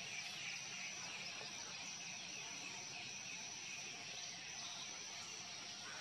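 Steady outdoor ambience: an even, high-pitched hiss of distant insects, with no distinct events.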